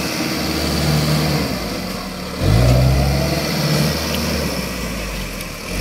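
Mini rice harvester's engine running while the machine is bogged down in deep paddy mud, revving up and getting louder about two and a half seconds in as it strains to pull free.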